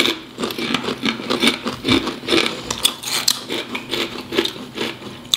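Two people chewing crisp potato chips close to the microphone: a dense, irregular run of crunches, several a second.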